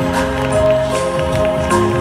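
Music: a melody of held notes that change about every half second over a steady beat.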